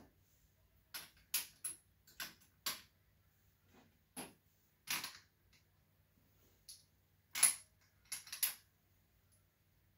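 Small parts of a scale model crawler crane clicking and tapping as they are handled and fitted by hand: about a dozen short, sharp clicks at irregular intervals, the loudest about seven and a half seconds in.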